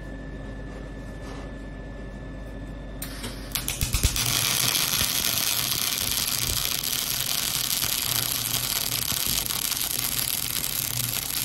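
Robot-held MIG welding torch striking an arc about four seconds in and welding steadily with a loud, dense crackle. Before that, a steady hum with a faint whine, then a hiss that starts about a second before the arc.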